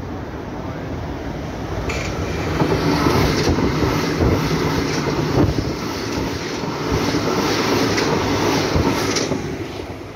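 Berlin U-Bahn small-profile train passing close by on open track, its wheels rumbling and clacking over the rail joints. The sound builds from about two seconds in and drops away near the end.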